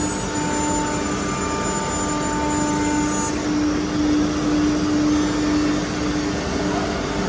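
Steady machinery noise of a CNC nesting panel-cutting shop: a constant rushing hum with a steady pitched drone under it. A higher tone drops out about three seconds in.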